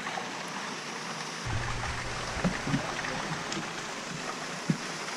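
Steady rushing of water and wind around a fishing boat on the water, with a low rumble coming in about a second and a half in and a few light knocks.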